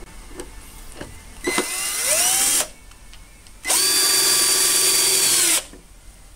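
Power drill run in two bursts: the first spins up with a rising whine for about a second, then after a short pause a second run holds a steady whine for about two seconds.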